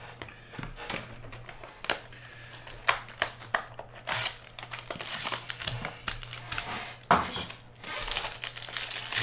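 Crinkling and rustling of card packaging being opened and handled, with many sharp clicks and snaps, growing busier after about four seconds, over a faint steady low hum.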